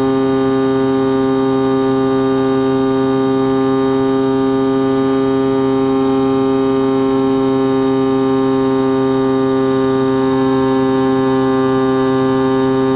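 Skywalker X-8 flying wing's motor and pusher propeller, heard from the onboard camera, droning at one steady pitch in level cruise, with a thin high whine above it.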